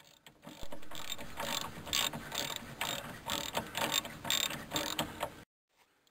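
Socket ratchet wrench clicking in quick runs of strokes as a suspension nut is worked loose. The clicking starts about half a second in and cuts off abruptly about half a second before the end.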